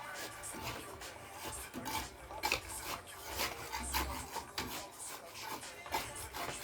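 Repeated scraping or rasping strokes, uneven, about two to three a second, typical of a hand tool worked against a building material.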